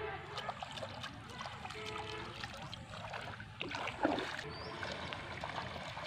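Bare feet wading and splashing through shallow, muddy water, with the loudest splash about four seconds in.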